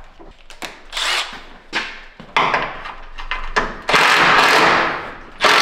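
Handheld cordless power driver running in bursts, working bolts on the truck: a few short spurts first, then longer runs of about a second each.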